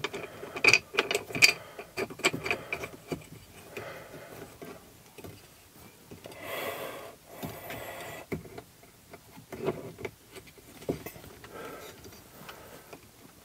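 Hard plastic clicks and taps of a ball-socket radio mount being pushed and worked over a 20 mm mounting ball, densest in the first couple of seconds and scattered after, with a brief rustle about halfway.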